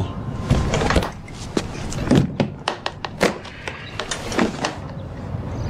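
Metal briefcase being handled and opened: a series of sharp clicks and knocks as the latches snap and the lid comes up.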